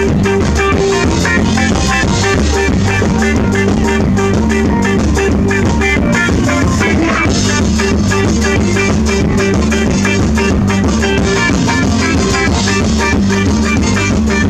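Live band playing through stage speakers: electric guitar, bass guitar, drum kit and keyboard with a steady beat.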